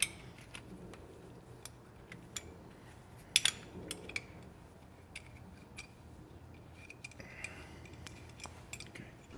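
Scattered, faint clicks and clinks of small metal parts and hand tools being handled, as the shifter-cable pin and bushings are worked off a stock side-by-side shifter arm. A small cluster of sharper clicks comes about three and a half seconds in.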